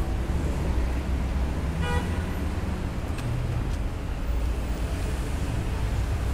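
Street traffic: cars running with a steady low rumble, and a short car horn toot about two seconds in.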